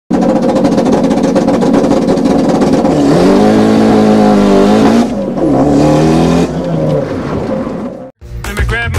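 Racing car engine at high revs. Its pitch climbs about three seconds in, dips and climbs again around five seconds, then the sound fades and cuts off shortly before the end.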